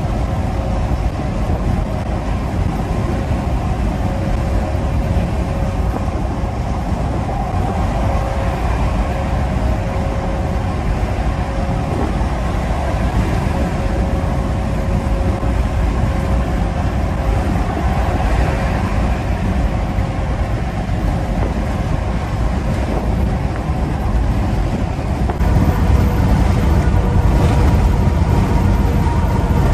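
Inside the cab of a 2012 Peterbilt 389 semi-truck cruising at highway speed: steady engine drone and road noise with a faint steady whine over it. It gets a little louder near the end.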